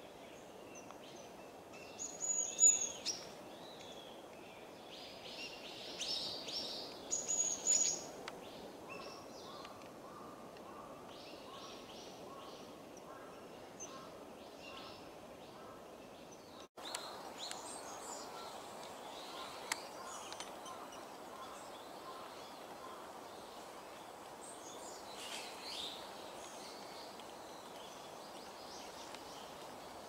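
Japanese tits calling: groups of short, high notes, loudest between about two and eight seconds in, then fainter scattered bird calls later, over steady low background noise.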